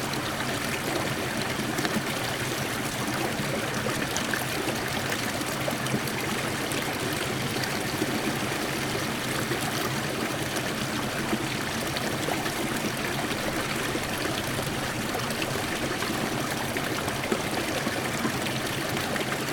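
Water of a stream running steadily.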